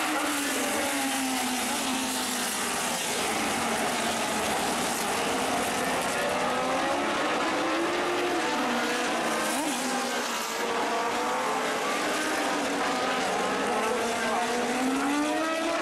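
A car engine running at speed over road noise, its pitch slowly rising and falling as the car speeds up and eases off, climbing again near the end.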